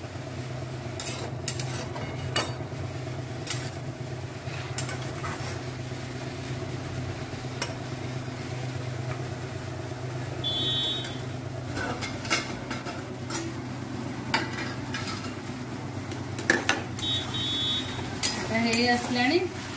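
Steel spatula stirring amaranth greens frying in a kadai, with scattered sharp clicks and scrapes of metal on the pan, over a steady low hum.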